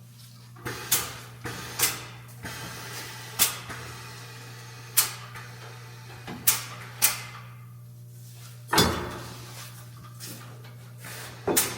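A run of sharp metallic knocks and clanks, about eight spread over the seconds, with a longer, louder clank near the end, over a steady low hum. They fit tools and suspension parts being handled and set down during work on a car.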